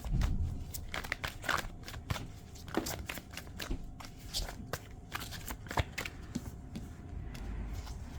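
A deck of tarot cards being shuffled and handled by hand: a run of quick, irregular card clicks and rustles.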